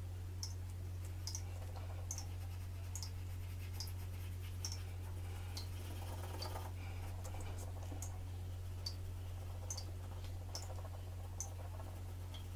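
Graphite pencil shading on smooth drawing paper: soft scratching strokes, strongest about halfway through, with short high clicks about once a second and a steady low electrical hum underneath.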